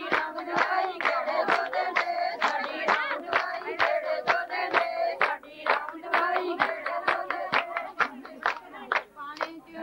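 Young women singing Punjabi boliyan together over steady hand clapping that keeps the giddha dance rhythm, about two to three claps a second.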